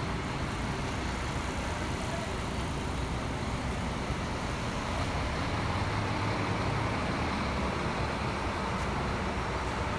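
Scania K410 double-decker coach's six-cylinder diesel engine running as the coach moves off slowly, a steady low rumble that grows a little louder about halfway through.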